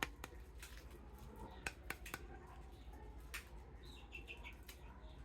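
Faint scattered clicks and taps of small plastic toy parts being handled, with a few brief high squeaks about four seconds in.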